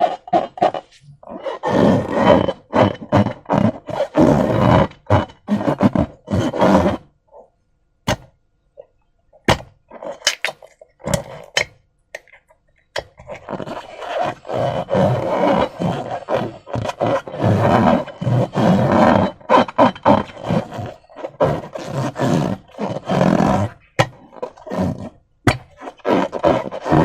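Slime being squished and worked by hand: irregular wet squelching and crackling in bursts. A pause of several seconds in the middle is broken only by a few sharp clicks.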